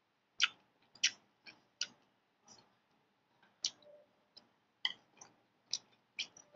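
Irregular soft clicks and smacks, about a dozen over several seconds: mouth and lip sounds of someone chewing noodles with the mouth partly open.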